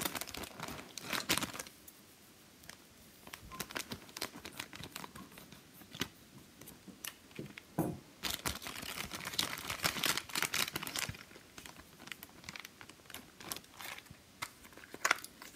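Scissors snipping open a thin plastic toy bag, then the crinkly plastic packaging rustling and crackling in spurts as it is handled, loudest about eight to eleven seconds in.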